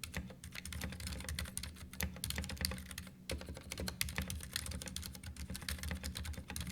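Continuous typing on a Ducky One 2 Mini 60% mechanical keyboard: a fast, dense run of key clicks and clacks.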